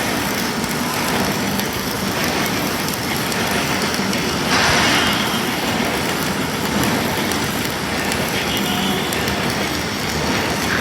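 Self-shielded flux-cored (Innershield) wire welding arc burning steadily, a continuous hiss and crackle, with a louder patch about four and a half seconds in.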